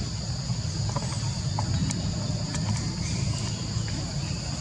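Outdoor ambience: a steady low rumble under a steady high-pitched hum, with a few faint ticks.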